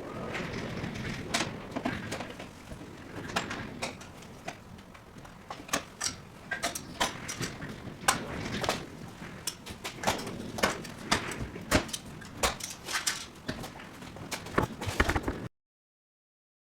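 Irregular knocks, clicks and clatter of hands-on dismantling work, with a low steady background; the sound cuts off suddenly near the end.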